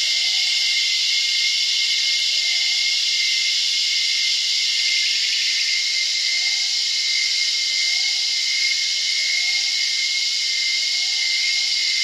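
Rainforest ambience: a dense, steady, high-pitched cicada chorus with a sustained tone running through it. A distant bird gives a faint, short rising call every second or two.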